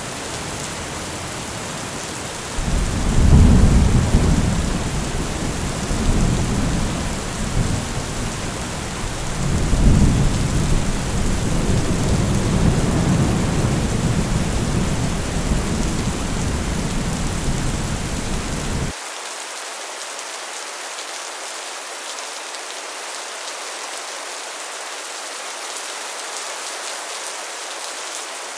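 Intense rain falling on a metal roof, with a long rumble of thunder. The thunder starts a few seconds in, swells twice, and cuts off suddenly about two-thirds of the way through, leaving only the rain.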